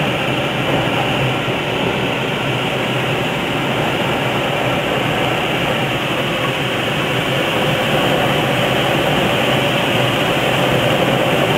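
Steady rush of airflow heard by a small camera riding on a radio-controlled model aircraft in flight, with a faint steady hum under it. It grows slightly louder about two-thirds of the way through as the model drops low over the slope.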